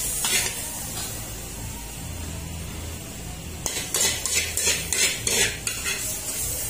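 Metal ladle scraping and knocking against a steel wok as the stir-fry is scooped out onto a plate: a couple of strokes at the start, then a run of quick scrapes, two or three a second, from a little past halfway.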